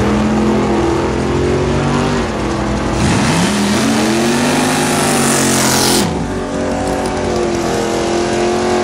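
Drag-racing pickup truck's engine doing a burnout: running, then revving up sharply about three seconds in and held high for about three seconds with a loud hiss of spinning tyres. It drops off suddenly and settles back to a steady engine note.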